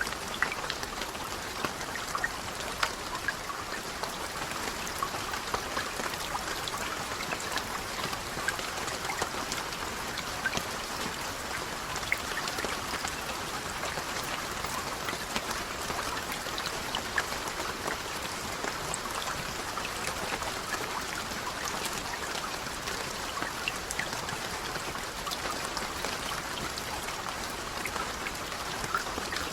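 Steady rain falling, with many individual raindrop ticks scattered through an even hiss.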